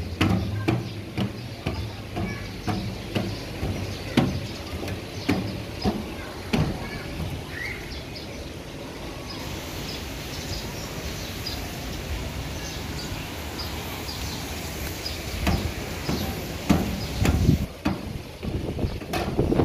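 Footsteps climbing metal checker-plate stairs, about two knocking steps a second. They stop for several seconds in the middle, leaving steady outdoor noise, and start again near the end.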